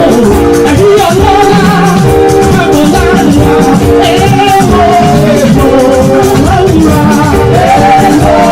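Loud church praise music: singing over held instrumental notes and a steady beat.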